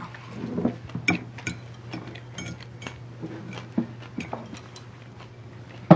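Metal fork clinking and scraping against a plate while someone eats, in irregular short clicks over a low steady hum.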